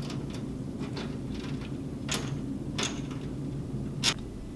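Small metal clicks and taps as 8-32 nuts and spring washers are fitted by hand onto the screws of a terminal block in a sheet-metal electronics enclosure. The sharpest click comes about four seconds in, over a steady low hum.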